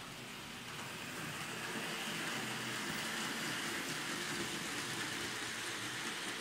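Märklin model train running on the layout's track: a steady electric motor hum and wheel rumble that grows louder over the first couple of seconds, then holds.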